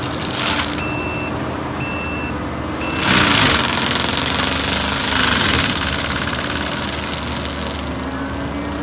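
Kubota skid steer's diesel engine running hard with a forestry mulcher. Its pitch sags about 3 s in, with a burst of shredding noise, and again about 5.5 s in, as it takes load. Three short beeps about a second apart sound near the start.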